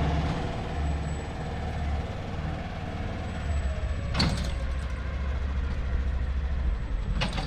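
A vehicle engine running steadily at low speed, with a single knock about four seconds in.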